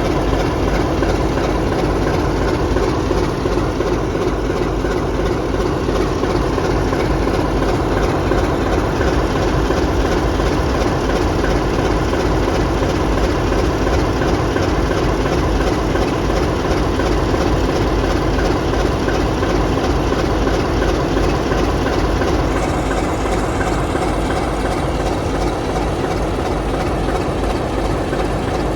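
Sulzer diesel engine idling with a steady, even, low snoring rumble.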